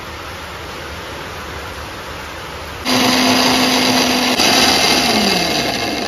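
Electric mixer-grinder starts suddenly about three seconds in and runs loudly with a steady hum, grinding fresh mint leaves into the spice paste for chutney. After a click about a second and a half later, its pitch falls steadily as the motor winds down.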